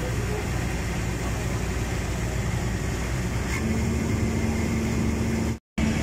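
Diesel engine of a backhoe excavator running steadily as it holds a speedboat up in slings. A steady hum joins a little past halfway, and the sound cuts out briefly near the end.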